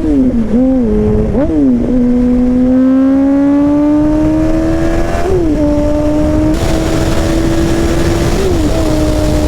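2008 Yamaha R1's inline-four engine under way, the pitch jumping and dropping at gear changes near the start, about five seconds in and near the end. In between it climbs slowly, then holds at a steady cruise over a constant rush of wind.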